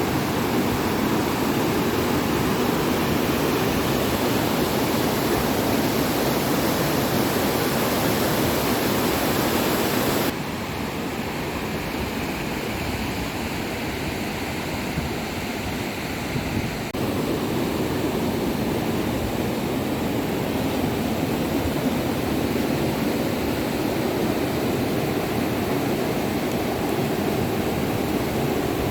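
Steady, loud rush of water. It changes abruptly twice, dropping in level about ten seconds in and rising again about seven seconds later.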